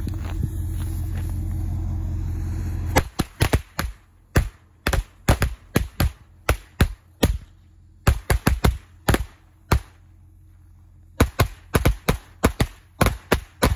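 A 100-count pack of flash firecrackers going off: sharp, loud bangs in quick irregular clusters, with a gap of about a second and a half before the last ones. For the first three seconds only a steady low rumble is heard before the first bang.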